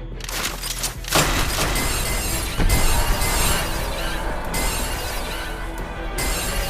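Soundtrack music with a loud shattering crash sound effect starting about a second in and a noisy smash running on for a few seconds, with another burst near the end.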